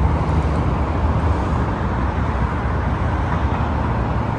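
Steady noise of traffic on a wide city street, with cars and buses driving past.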